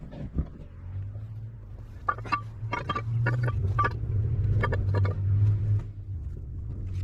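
An engine running with a steady low hum, with a string of sharp clanks and knocks, some with a short metallic ring, from about two to five seconds in.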